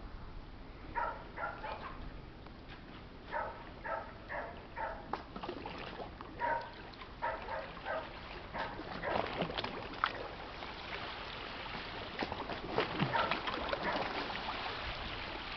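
A dog barking in short runs of two to four barks through the first half. From about nine seconds in, water washes and splashes against the shore, growing louder.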